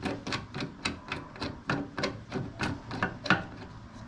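Quick clicks and taps, about four a second and unevenly spaced, as a 90-degree hose fitting is handled and turned on the fuel pump outlet of a fuel tank's top plate.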